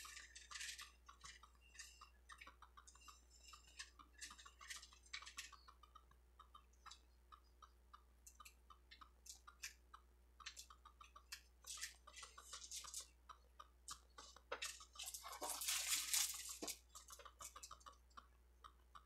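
Faint, irregular small clicks and taps of a diamond painting drill pen picking up drills from a plastic tray and setting them onto the canvas. A brief louder rustling comes about fifteen seconds in.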